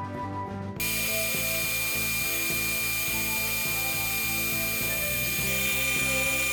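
A power tool starts about a second in and runs steadily, a constant high whine over its running noise, with background music underneath.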